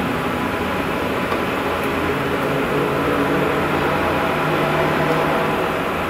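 A steady hiss and rumble with faint low tones wavering underneath: the unexplained droning hum whose source was searched for and never found.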